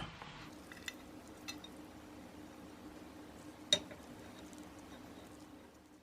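Light clinks of kitchen utensils and dishes during home cooking: a few small taps, then one sharper clink about four seconds in, over a faint steady hum.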